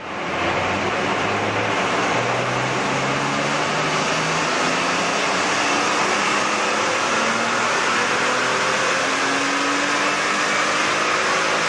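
Supercharged BMW M3 E46 straight-six engine pulling under load on a power bench, its pitch climbing slowly and steadily as the revs rise, over a loud rushing noise.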